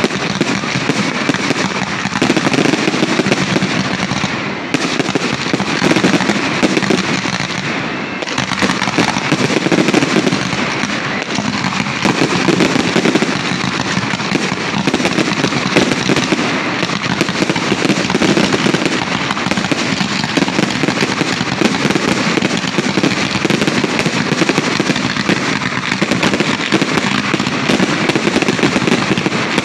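Aerial fireworks display: a loud, dense barrage of shell bursts and crackling that goes on without a break.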